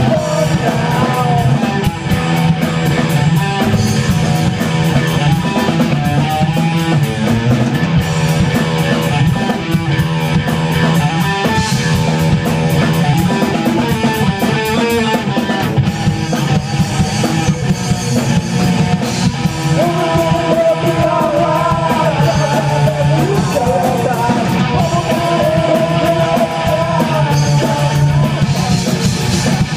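Live punk rock band playing loudly: electric guitar and drum kit, with a woman singing.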